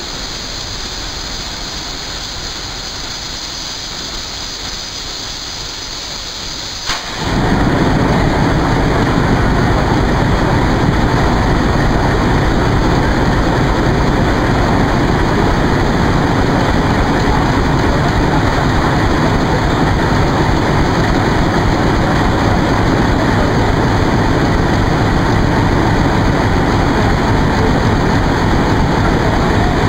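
ALCO diesel locomotive engine running at standstill, a steady even noise. About seven seconds in there is a click and the sound jumps abruptly louder and deeper for the rest of the time.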